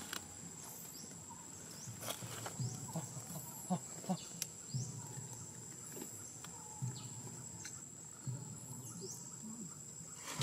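Outdoor ambience: a steady high insect drone, with short arching chirps every second or two and scattered short, low sounds, two of them louder about four seconds in.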